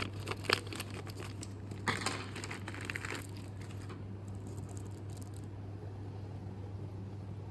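Handling noise: crinkling and rustling with a few sharp clicks over the first three seconds or so, then only a steady low hum.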